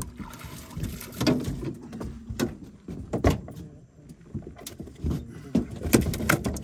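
Irregular knocks, clunks and rattles of bowfishing gear, a bow and its reel, being handled against the boat after a fish has been shot.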